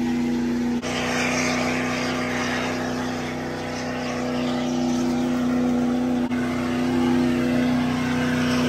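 Squatted Ford Super Duty pickup's engine held at steady high revs during a burnout, a loud unbroken drone, with hiss from the rear tires spinning on the pavement. The sound breaks off for an instant about a second in and again about six seconds in.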